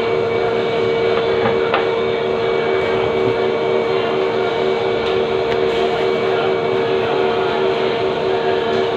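Steady mechanical hum with a constant pitched tone and a faster pulsing tone just beneath it, plus a few faint clicks.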